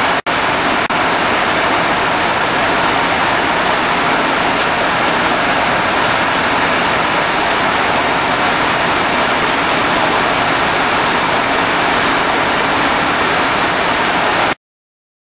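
Fire engines running at a fire scene: a steady, loud rushing drone that cuts off suddenly near the end.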